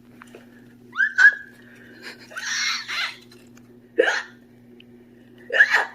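A person voicing an elephant's hiccups: a few short, high 'hic' sounds, about four, spaced a second or so apart.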